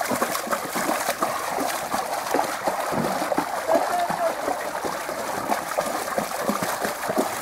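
Water splashing and trickling in a paddling pool, with faint voices in the background.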